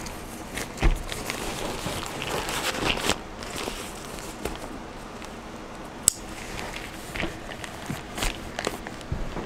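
A packed fabric bag being handled and rustling, set down on a table with a thump about a second in; later a sharp click and a few light knocks as it is moved.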